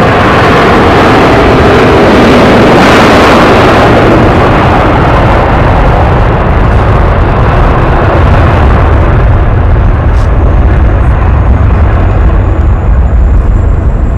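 Airbus A330 jet engines at high power as the airliner rolls down the runway. The roar is loudest a few seconds in as it passes, then settles into a deep, crackling rumble as it moves away.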